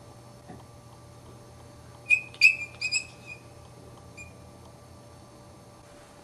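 Chihuahua puppy squealing during rough play-biting: a quick run of about five short, high-pitched squeaks about two seconds in, then one faint squeak a second later.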